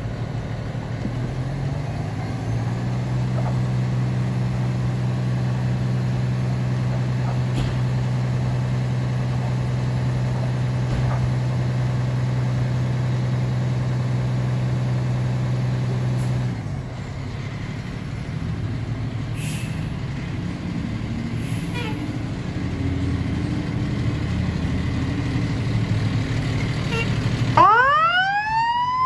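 Fire engine's diesel engine running steadily, its tone dropping and growing rougher about halfway through. Near the end a siren winds up in a steep rising wail as the engine pulls out.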